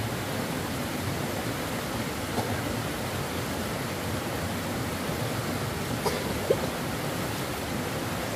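Steady rushing of flowing stream water, with a couple of faint brief sounds about two and six seconds in.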